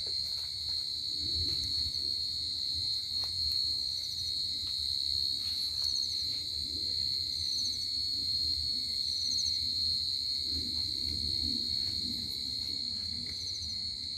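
Crickets calling at night: a steady high trill throughout, with short pulsed chirps every few seconds. Underneath is the low rustle of footsteps through grass.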